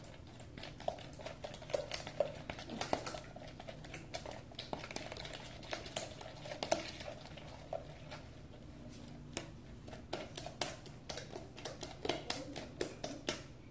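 Utensil stirring freshly activated glue slime in a clear plastic bowl: irregular clicks and taps against the bowl with wet stirring noises, easing off for a moment in the middle.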